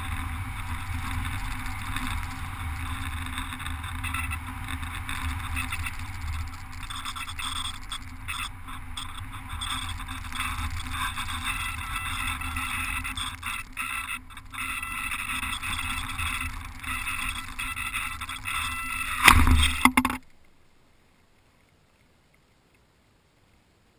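Airflow rushing past a GoPro mounted on top of an RC glider in flight, then a loud scraping thud about 19 seconds in as the glider lands in tall grass, after which it goes nearly silent.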